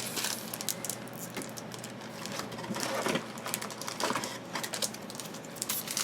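Trading-card pack wrappers crinkling and rustling as the packs and cards are handled, a dense run of small crackles and clicks with a few louder ones.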